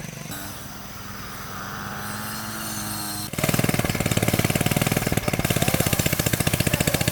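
Small engine running. About three seconds in, it abruptly gets much louder, with a rapid, even pulsing.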